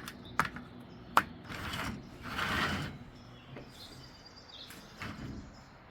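Faint birds chirping in the background, broken by two sharp clicks in the first second or so and two short bursts of rustling noise soon after.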